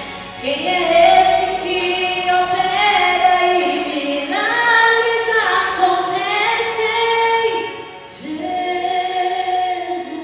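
A woman singing through a microphone, holding long notes, with a short break about eight seconds in.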